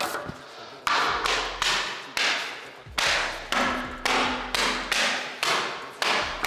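Background music: a beat of sharp drum hits about twice a second over a deep bass.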